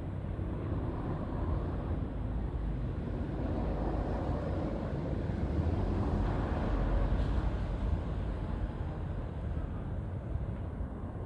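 Strong wind buffeting the microphone, gusting up about six seconds in and easing again, over a low background hum of the city below.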